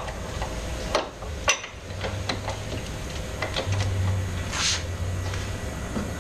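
Steel three-point hitch parts and pins clanking and clinking as they are fitted, with two sharp metal knocks about a second and a second and a half in.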